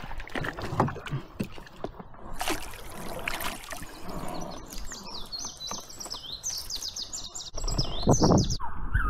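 A hooked trout splashing and thrashing as it is scooped into a wooden landing net, with knocks of handling. A bird chirps in a rapid high series from about halfway through, and louder handling noise comes near the end.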